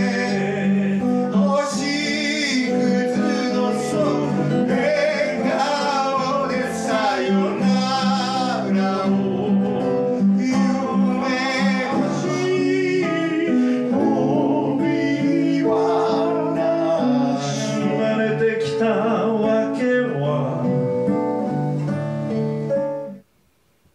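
Men singing with acoustic guitar accompaniment, a rehearsal of a folk-style song; the music cuts off suddenly about a second before the end.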